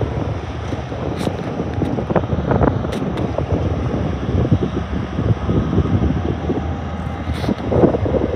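Two CBH Group diesel locomotives hauling a grain train past, a steady low rumble of engines and rolling wagons mixed with wind buffeting on the microphone. A few faint ticks sound over it.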